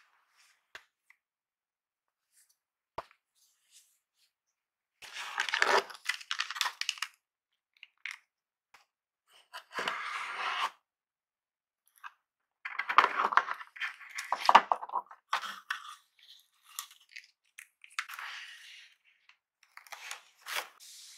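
Cardboard packaging inserts being handled: scraping and rustling of cardboard flaps and the power cable in several separate bursts of a second or two each, with short quiet gaps and a few light clicks between them.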